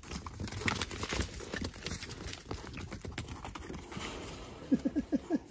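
Piglets moving about a dirt pen: scattered light clicks and scuffs of their trotters and rooting, then a quick run of about half a dozen short grunts near the end.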